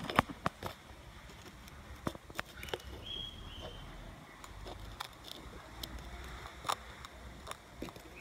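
Small sharp clicks and taps of handling, loudest and closest together at the start and then scattered, as the rock sample is turned under the magnifying lens.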